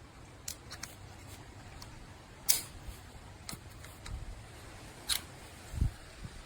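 Scattered short sharp clicks over a low steady background, the loudest about two and a half seconds in, with a soft low thump near the end.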